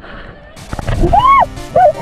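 Background music comes in about halfway through, loud, with swooping tones that rise and fall in pitch over it.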